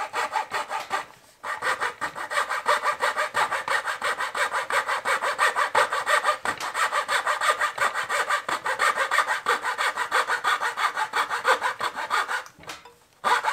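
A small handheld frame saw cutting through a thin wooden dowel in rapid, even back-and-forth strokes, with a short break about a second in. The sawing stops shortly before the end.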